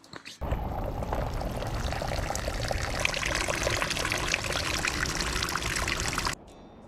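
Rushing water of a swollen stream, a loud steady noise that starts suddenly about half a second in and cuts off abruptly near the end.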